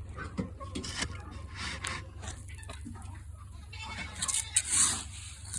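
Chickens feeding, with scattered faint pecking clicks and soft clucks. A louder rustling scrape comes about four and a half seconds in.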